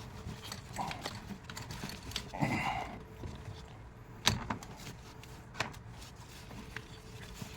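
A few sharp clicks and light knocks of parts being handled while a car battery is fitted, the loudest about four seconds in, with a short grunt-like voice sound about two and a half seconds in.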